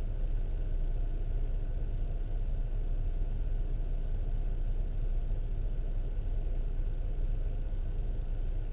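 Steady low rumble with a faint hiss, even throughout with no distinct events.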